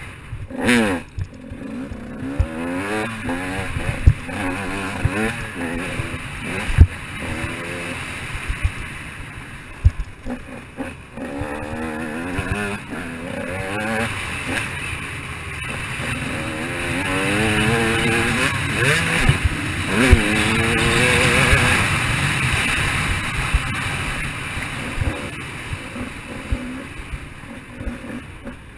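KTM 200 XC-W two-stroke dirt bike engine revving up and down again and again under riding, its pitch rising with each throttle opening and dropping off between, loudest about two-thirds of the way through. Occasional sharp knocks cut through the engine sound.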